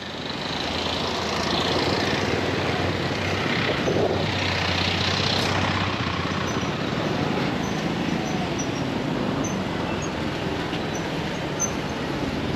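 Street traffic: vehicles passing close by, a steady wash of engine and tyre noise that swells as each one goes past, with a low engine hum through the first half.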